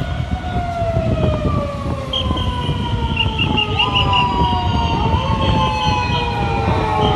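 Several police car sirens wailing together, their pitch slowly falling, with another siren starting up and rising about four seconds in. Short high beeps repeat through the middle, over a heavy low rumble of traffic.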